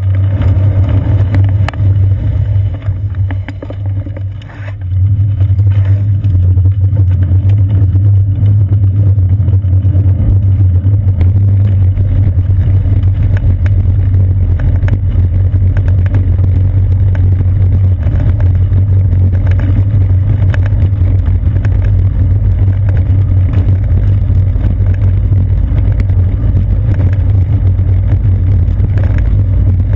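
Low, heavy rumble of road vibration and wind buffeting, picked up by a seat-post-mounted GoPro Hero 2 in its housing on a moving bicycle. It eases briefly about three to five seconds in, then runs loud and even as the tyres roll over a brick-paved street.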